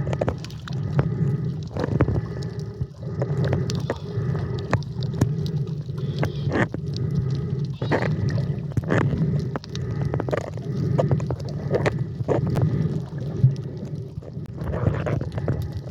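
Underwater sound from a snorkeler's camera: a steady muffled rumble of water with gurgling and frequent sharp clicks.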